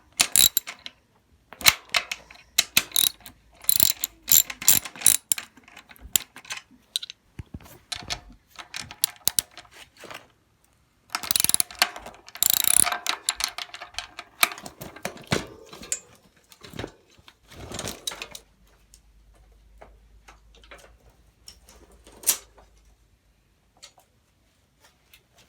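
A mountain bike's rear wheel being taken off and handled: irregular metallic clicks, rattles and knocks, busiest about halfway through, with the hub's freewheel ratchet clicking as the wheel turns.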